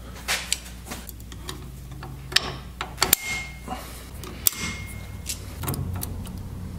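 Light metallic clicks and clinks from a Spartan locker's parts inside a Ford 8.8 differential carrier as its retaining pins are pulled out and the spring-loaded drivers shift. Twice, about three seconds in and again about a second and a half later, a click is followed by a short high ring.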